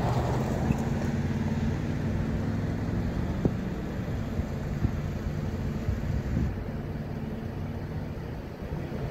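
Motor vehicle engine running steadily at low revs, with a few light clicks.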